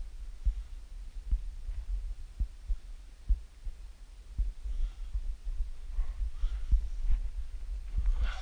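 Low rumbling with irregular dull thumps, about one a second, on a body-worn action camera's microphone as the wearer scrambles over rock. Faint breaths or scuffs come in near the end.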